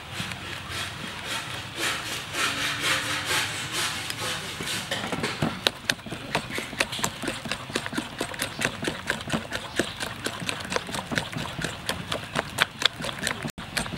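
Spiral wire whisk beating thick batter in a glazed ceramic bowl. It starts as a wet, busy stirring sound, and from about five seconds in turns to quick, regular clicks of the whisk striking the bowl, about three or four a second.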